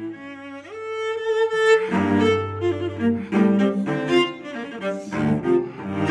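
Solo cello, bowed: a slide up into a long held high note about a second in, then quick, louder notes low in the cello's range from about two seconds on.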